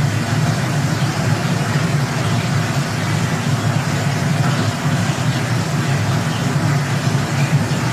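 Steady, unchanging rumbling noise with a hiss above it and no beat or tune: the background noise bed of a subliminal audio track.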